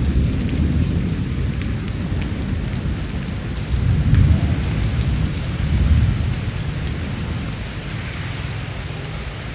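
Steady rain falling, with low rolling thunder rumbling underneath that swells about four seconds in and again around six seconds, then eases off.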